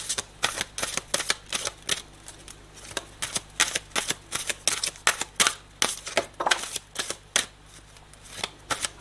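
Oracle cards being shuffled by hand: a run of quick, sharp card slaps and clicks, irregular, a few a second.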